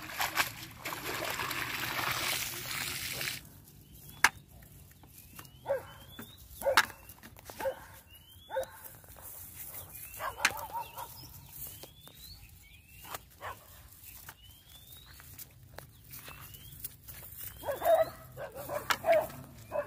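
Water splashing and streaming off a cast net as it is hauled out of a pond, for about three seconds. Then a bird's short rising chirp repeats about once a second among scattered sharp little sounds, and near the end a dog yips several times.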